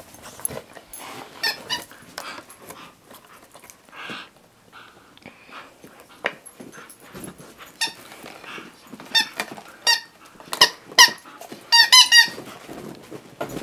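A husky chewing a squeaky dog toy, the toy giving short high squeaks: a few scattered ones, then a quick run of several near the end.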